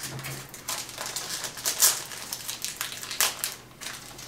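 Foil wrapper of a Panini Mosaic trading-card pack crinkling and crackling as hands handle it, in quick irregular crackles with the sharpest one a little under two seconds in.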